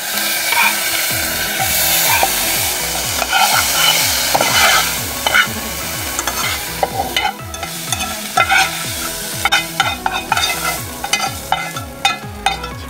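Hot oil with fried garlic and coriander sizzling as it is spooned from a frying pan onto chopped green fava beans, a metal spoon scraping and tapping the pan, more often in the second half. A faint beat of background music runs underneath.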